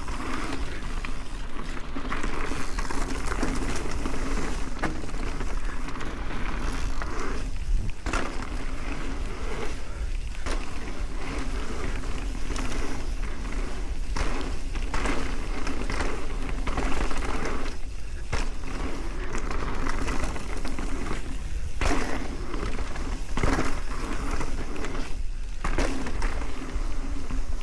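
Mountain bike descending a dirt trail at speed: tyres rolling over dirt and roots with frequent knocks and rattles from the bike over bumps, and wind rumbling on the microphone.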